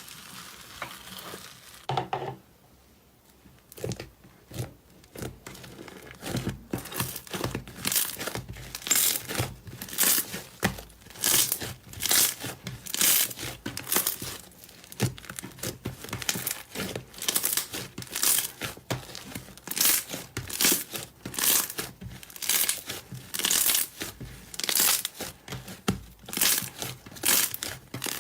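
Slime being squeezed and stretched by hand, giving a string of short crackly, crinkling pops about one or two a second after a short pause near the start.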